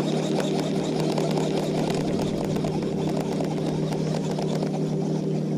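Boat motor running at a steady pitch, with the hiss of water or wind over it.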